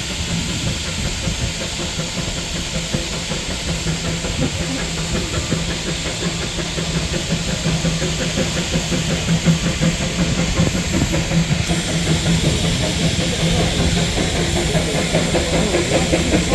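Steam locomotive hissing steam steadily over a low hum, the hiss turning brighter and a little louder about twelve seconds in.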